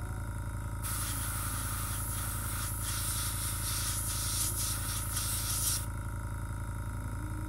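Airbrush spraying paint in a steady hiss from about a second in until near six seconds, with a few brief surges, over the constant pulsing hum of its small air compressor.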